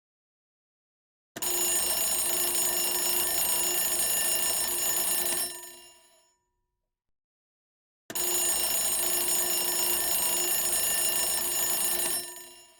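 Alarm bell ringing in two long bursts of about four seconds each, with a pause of about two seconds between them. Each ring starts suddenly and dies away over about a second.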